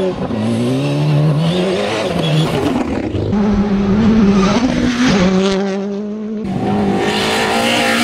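Rally car engines at full throttle on a gravel stage, the pitch climbing through the gears and dropping at each shift, then held high with short lifts. About six and a half seconds in a different car's engine takes over, with more hiss.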